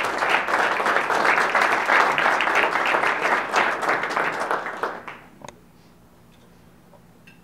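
Audience applauding, a dense patter of many hands that fades out about five seconds in, leaving quiet room tone with a few faint clicks.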